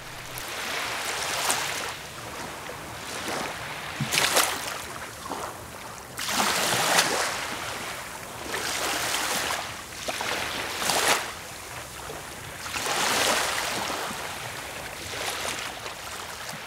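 Small waves breaking and washing up a sandy beach, a fresh surge every two seconds or so.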